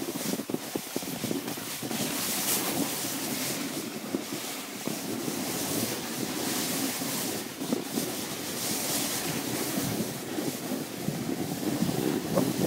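Skis sliding and scraping over snow during a downhill run, with wind rushing over the microphone: a continuous rushing hiss that swells and eases every second or two.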